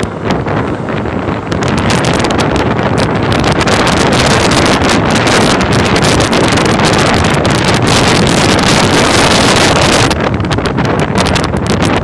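Wind rushing and buffeting over the microphone of a motorcycle moving at road speed, with road and vehicle noise underneath. It grows louder a few seconds in and eases a little near the end.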